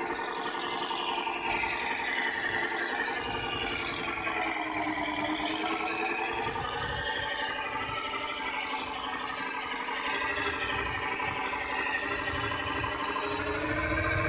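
Radio-controlled scale dump truck driving through mud, its motor and gears running with a whine whose pitch dips around five seconds in and climbs again toward the end, with some rattle.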